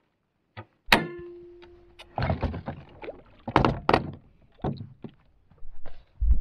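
A sharp metallic clank about a second in that rings on one tone for about a second, followed by a run of irregular knocks and thumps, typical of gear being moved around in an aluminium bass boat.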